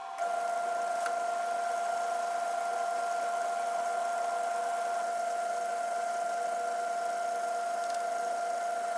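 A 1936 Atlas 12-inch metal lathe running with its spindle and chuck turning, giving a steady mechanical hum with a constant tone.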